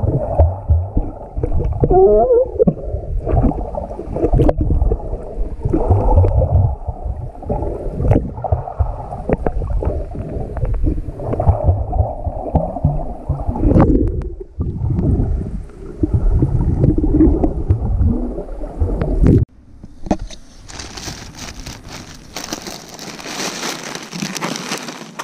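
Muffled underwater sound of water sloshing and gurgling around a submerged camera, with irregular swells and dull knocks. About twenty seconds in it cuts to a thinner, brighter rustling of a hand in a plastic snack bag.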